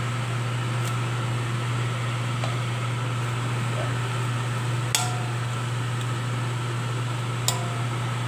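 A steady low mechanical hum, with two sharp metallic clinks about two and a half seconds apart, each ringing briefly, as from a utensil or lid touching a metal cooking pot.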